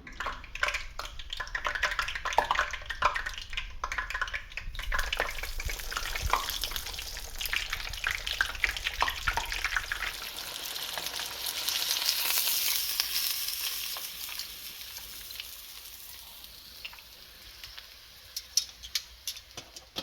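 Seasoned catfish fillets frying in hot oil: a steady sizzle with dense crackling pops. The sizzle swells about two-thirds of the way through, then dies down to scattered pops near the end.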